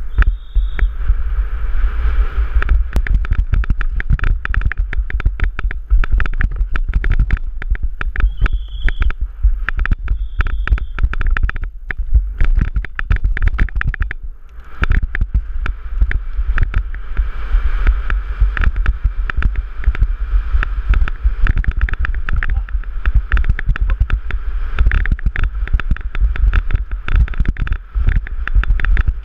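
Downhill mountain bike ridden at race speed over a dry dirt track, heard from a helmet-mounted camera: wind buffeting the microphone under a constant rattle of clacks and knocks from the bike over the bumps. It goes briefly quieter a little after halfway.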